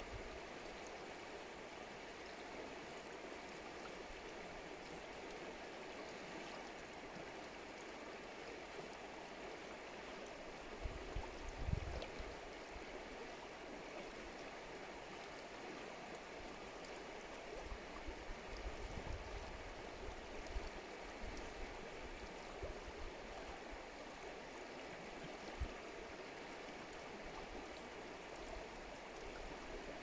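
Shallow river running over stones: a steady rush of flowing water, with a few brief low rumbles, the strongest about 12 seconds in.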